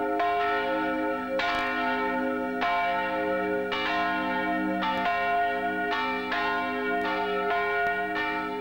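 Church bells ringing, a fresh stroke about every second and a quarter, each one still ringing on under the next.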